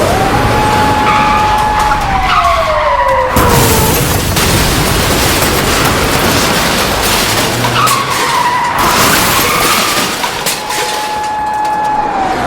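Police car siren sound effect wailing: the tone holds steady, then slides down in pitch, twice. Under it runs a loud, constant rush of speeding-vehicle noise.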